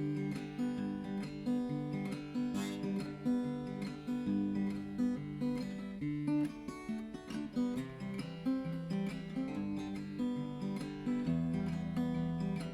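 Background music: strummed acoustic guitar playing a steady chord progression.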